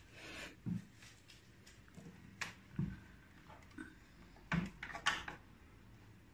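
Handling noise from a Sony portable radio cassette player: a handful of soft knocks and rubs of its plastic body as a hand moves it on the table, the loudest pair about four and a half to five seconds in.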